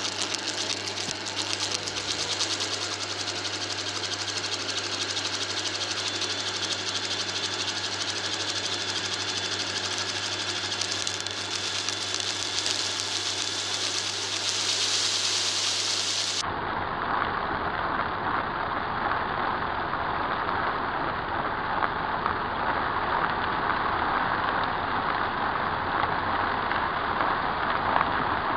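Vacuum cleaner running steadily over a carpet mat, sucking up sparkly debris, with a steady motor hum. About 16 seconds in, the sound cuts abruptly to a duller vacuum running.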